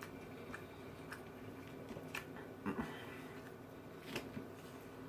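Close-up chewing of a salad, with a few soft irregular crunches, over a faint steady hum.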